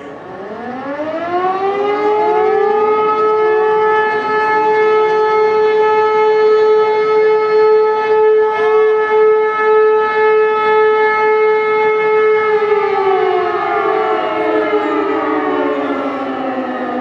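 E57 electro-mechanical civil-defence siren sounding one blast of the German fire alarm signal. It winds up over about two seconds, holds a steady tone for about ten seconds, then winds down, its pitch falling slowly near the end.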